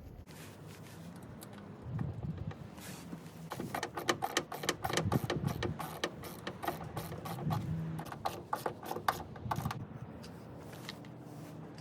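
Work on a car door's check-link hardware: a quick run of sharp mechanical clicks with low knocks under them, starting a few seconds in and easing off near the end.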